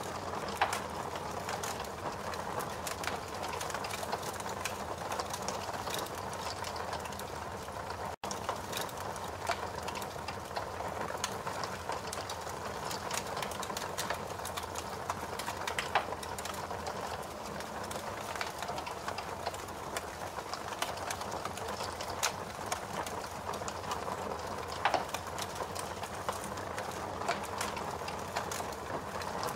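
Fire crackling: a steady hiss with frequent small crackles and a few louder pops, one near the start, one about halfway through and one near the end.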